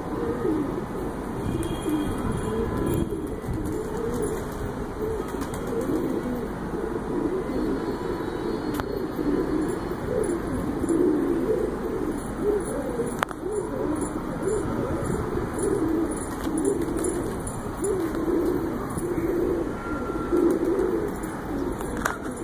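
A flock of domestic pigeons cooing continuously, many low calls overlapping.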